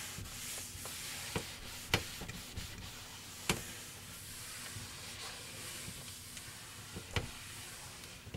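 Cloth rag damp with rubbing alcohol wiping over a sanded oak tabletop, a steady rubbing hiss as it lifts the sanding dust, with a handful of sharp clicks along the way.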